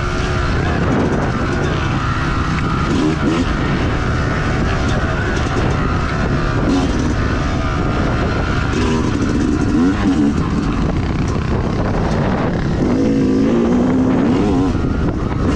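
Yamaha YZ250X single-cylinder two-stroke dirt bike engine under way, its revs rising and falling over and over as the rider works the throttle, with wind rumble on the microphone.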